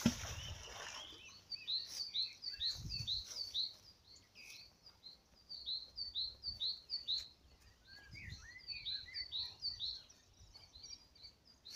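Songbirds chirping in a dense, continuous chorus of short, high, hooked chirps, with a brief rush of noise at the very start and a couple of faint low thuds.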